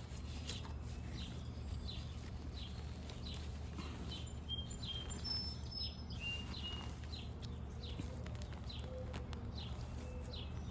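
Birds chirping outdoors: a run of short, high, downward chirps, about two a second, with a few brief whistled notes, over a steady low hum.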